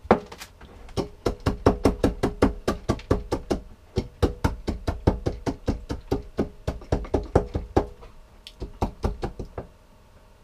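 Nuts being crushed by hand with rapid repeated pounding: a fast run of sharp knocks, about five a second, with a faint ringing from the vessel. The pounding pauses briefly near the end, then resumes for a few more strikes.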